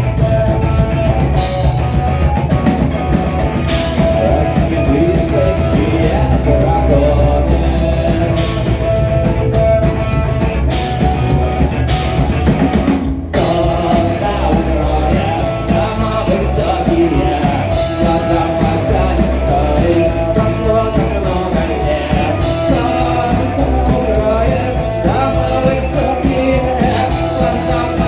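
Rock music with a singer and a drum kit. The sound breaks off for an instant about thirteen seconds in, then the music carries on.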